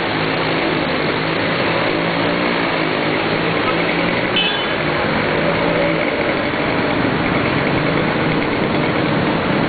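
A vehicle engine idling steadily over the rush of floodwater flowing down the street; the engine tone fades out about six seconds in, leaving the water.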